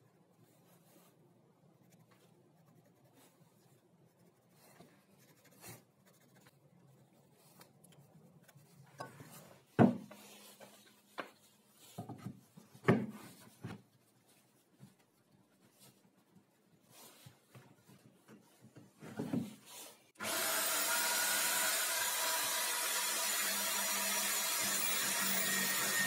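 Wooden pieces being set in place on a homemade wooden drill-press stand, with several sharp knocks. About 20 seconds in, a corded electric drill mounted in the stand starts and runs steadily as its bit is lowered by a wooden lever into a wooden block.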